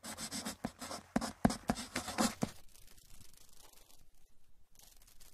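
Wooden pencil scratching across a sheet of paper in quick sketching strokes. The strokes fade away about two and a half seconds in, leaving only faint rubbing.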